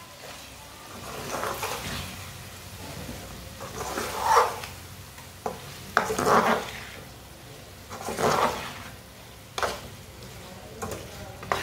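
Metal spoon stirring thick tinda curry in a metal karahi, scraping through the masala in strokes about every two seconds, with a few sharp clicks of spoon against the pan. The curry sizzles faintly underneath over the lit stove.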